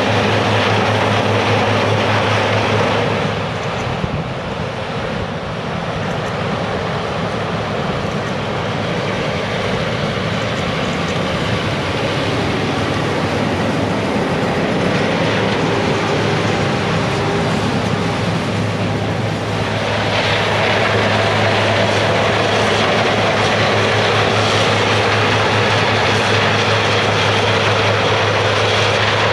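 Large diesel farm harvest machinery running steadily with a low engine drone under broad mechanical noise. It eases off slightly about three seconds in and grows fuller and louder again from about twenty seconds in.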